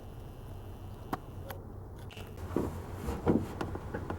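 Light rustling, scraping and a few sharp clicks of hands working among wiring and plastic trim behind a car's dashboard.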